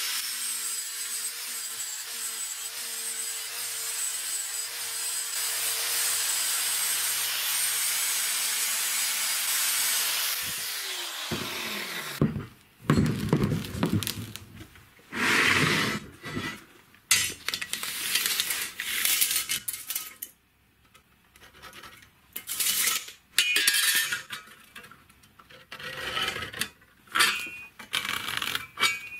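Angle grinder with an abrasive disc running steadily against the steel body of a car shock absorber, stripping rust and paint. About ten seconds in it is switched off and its whine falls as the disc spins down. It is followed by a series of short, irregular bursts of workshop noise.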